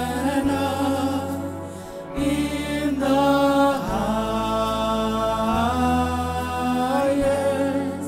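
Worship song performed live: long held sung notes over sustained chords, with the bass note changing every second or two.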